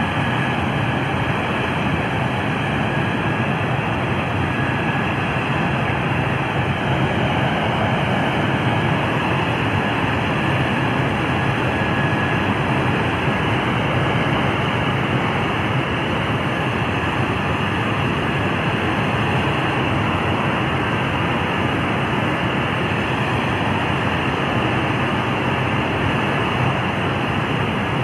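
Steady, loud engine noise inside a C-17 cargo hold, with a faint high whine at times, as the oxygen tanker truck rolls slowly out down the loading ramp.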